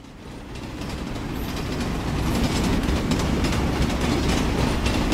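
A train rolling on rails, a steady low rumble with rattling, fading in over the first couple of seconds and then holding steady.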